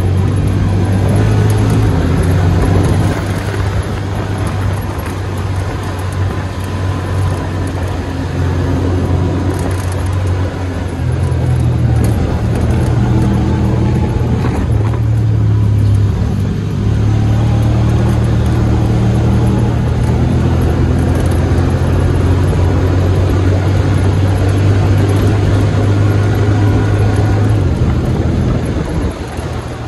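Side-by-side UTV engine running under way on a dirt trail, a steady low drone that drops in pitch about three seconds in, climbs again around eleven seconds and drops near the end as the throttle changes.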